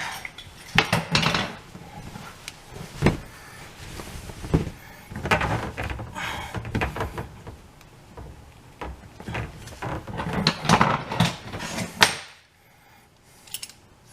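Irregular knocks, clunks and rattles of hands and tools working on the plumbing in the cabinet under a kitchen sink, ending with a sharp knock about twelve seconds in.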